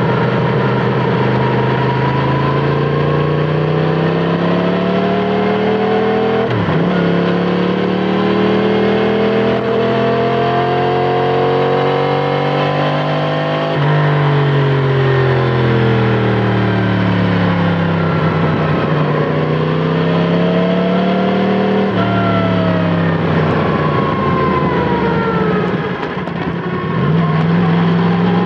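Yamaha MT-10 SP's crossplane inline-four engine through an Akrapovic titanium slip-on exhaust, ridden on the road. The revs climb and fall repeatedly, with sudden jumps in pitch at gear changes about 7, 14 and 22 seconds in, and a longer easing-off of revs in the second half.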